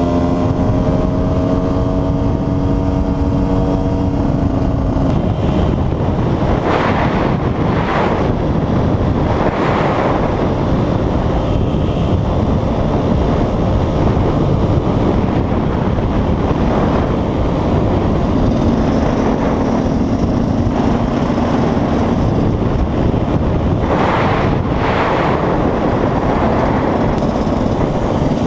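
KTM 125 EXC two-stroke single-cylinder engine running on the move, with heavy wind rush over the microphone. The engine note holds a steady pitch for the first few seconds, then is mostly buried under the wind noise, surfacing again faintly near the end.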